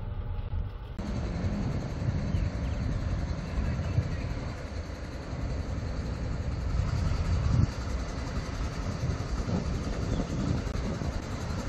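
Steady outdoor rumble, low and unsteady, with a hiss that comes in when the scene changes about a second in.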